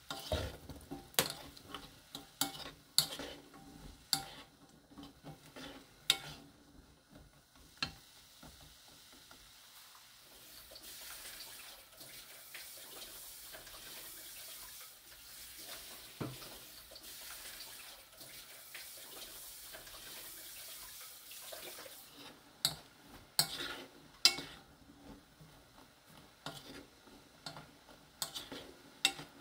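Wooden spoon stirring beans and peas in a nonstick pan, knocking against the pan many times, over the bubbling of the simmering soy-sauce braising liquid. The stirring stops for about ten seconds in the middle, leaving only the steady simmering hiss, then starts again near the end.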